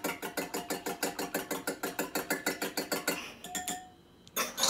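A fork beating an egg, milk, sparkling water and oil mixture in a ceramic bowl: rapid, even clinks against the bowl, about seven a second, that stop a little after three seconds in. A louder clatter of the bowl or fork being handled follows near the end.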